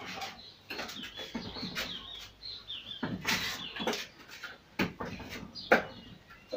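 Hands and forearms knocking against the wooden arms of a Wing Chun wooden dummy (mook yan jong): a quick, irregular series of sharp wooden knocks, the two loudest near the end. Birds chirp faintly in the background.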